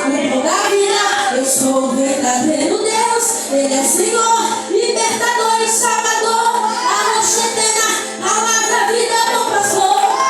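A worship song sung by female voices with instrumental accompaniment.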